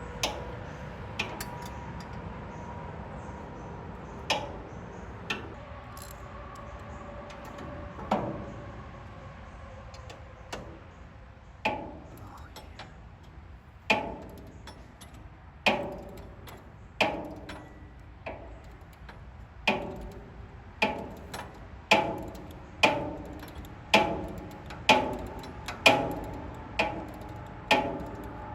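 Hand tools working on the steel chipper-blade bolts of a Troy-Bilt chipper shredder: sharp metallic clicks that each ring briefly. They are sparse and irregular at first, then settle into about one a second and grow louder in the last third.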